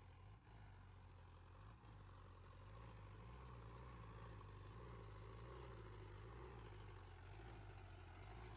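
Tractor diesel engine running faintly at low speed, a steady low hum that grows a little louder about three seconds in.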